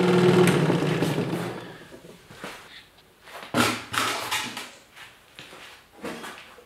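Delta 16-inch variable-speed scroll saw running with its original, unreplaced blade-arm linkage, then winding down and stopping within about the first two seconds. After that come a few separate knocks and clunks.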